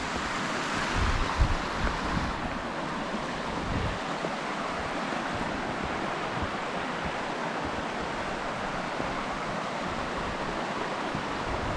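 A mountain creek flowing, a steady rush of water. A few low thumps come about a second in and again near four seconds.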